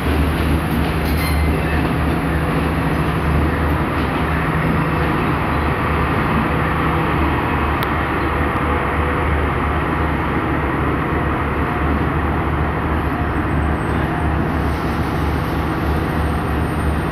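Sri Lanka Railways Class S14 diesel multiple unit power car pulling into a station, its diesel engine running with a steady low drone.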